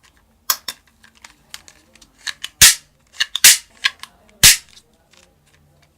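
Plastic toy guns clicking and snapping, with three loud, sharp pops like cap-gun shots about a second apart.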